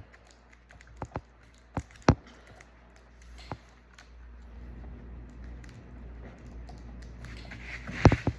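Sharp clicks and taps of a pry tool working at a laptop's LCD cable connector, spaced a second or so apart, then a louder cluster of clicks with a short rustle near the end.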